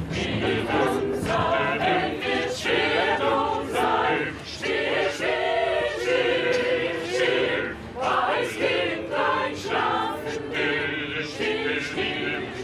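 A professional mixed-voice vocal ensemble singing a cappella inside a crowded tram car.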